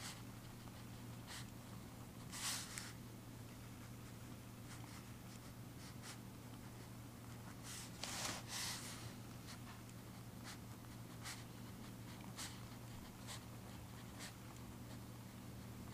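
Faint handwriting on paper: short scratchy strokes at irregular intervals, with two longer, louder strokes about two and a half seconds in and around eight seconds in.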